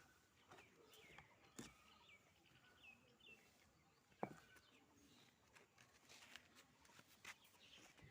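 Near silence with faint bird chirps, a run of short hooked calls in the first few seconds, and a few sharp clicks, the loudest about four seconds in.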